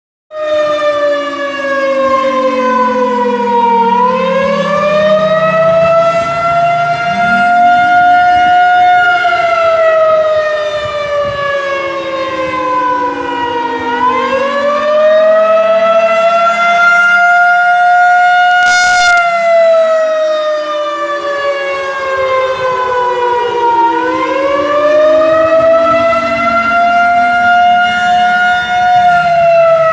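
Outdoor tornado warning siren sounding loudly during its monthly test, a single steady tone whose pitch slowly falls and rises in cycles of about ten seconds.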